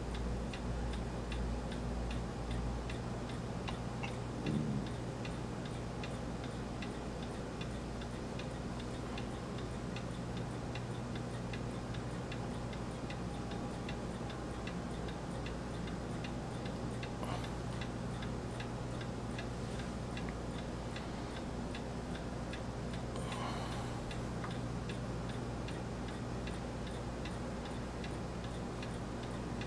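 Steady, evenly spaced ticking like a clock over a constant low hum.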